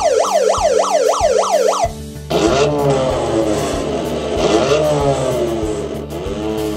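Sound effects played through the KC robot's speaker from its MP3 player. First a siren-like wail rises and falls about three times a second and cuts off about two seconds in. After a short gap, a second effect begins: several pitches sliding up and down over a steady low hum.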